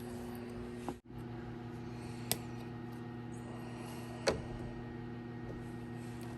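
A steady low hum runs throughout, dropping out for a moment about a second in, with a couple of faint clicks.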